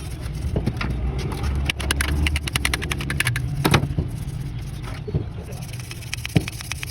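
Car engine running steadily, with a quick run of rapid clicks about two seconds in and a few single knocks later.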